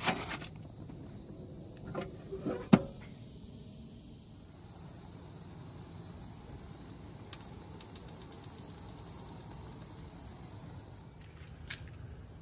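A few knocks and clanks in the first three seconds as a foil tray is handled on a charcoal grill's metal grate, the sharpest nearly three seconds in. After that, only faint steady insect chirping.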